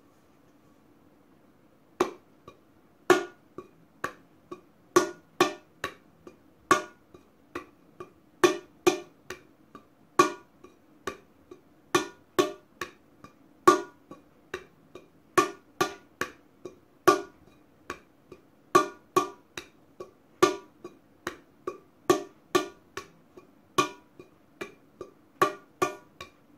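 Tumbao rhythm played with bare hands on the base of an upturned stainless-steel cooking pot: ringing metallic hand strikes, some loud and some soft taps, in a repeating pattern that starts about two seconds in.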